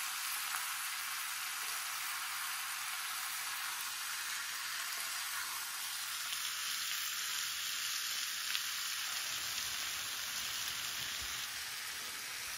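Pork and aged kimchi sizzling in a frying pan on a portable gas burner, a steady hiss that grows a little stronger about halfway through.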